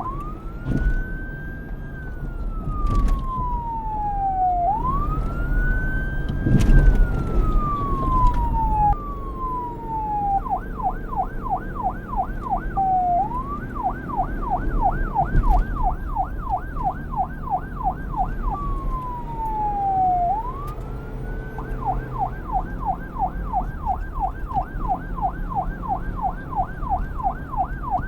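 Police car electronic siren switching between a slow wail, rising and falling over a few seconds, and a fast yelp of about four sweeps a second. It opens with two wail cycles, then yelps with a brief wail between, over a low rumble.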